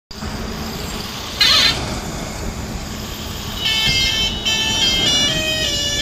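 Highway traffic passing, with a truck's musical horn playing a short tune of stepping notes from about three and a half seconds in. A brief warbling blast comes about a second and a half in.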